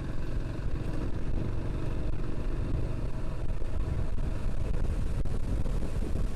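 Single-cylinder engine of a Dafra Kansas 150 motorcycle running steadily while riding on a dirt road, with wind rumbling on the microphone.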